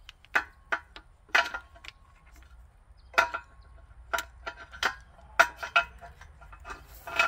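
Metal hydraulic quick-connect fittings on the grapple's hoses clicking and clinking as they are handled: a string of sharp, irregular clicks, some leaving a brief metallic ring.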